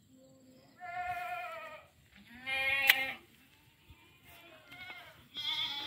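Farm animals bleating: about four wavering calls of roughly a second each, the later ones overlapping, with one sharp click about three seconds in.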